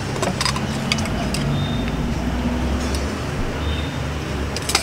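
Low, steady rumble of a nearby vehicle engine in street traffic, with a few sharp clicks, the loudest near the end.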